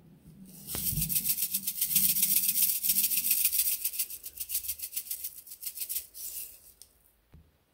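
Star-shaped plastic sequins rattling inside a clear plastic shaker container as it is shaken rapidly to sprinkle them out, for about five seconds; a soft knock comes just before the rattling starts.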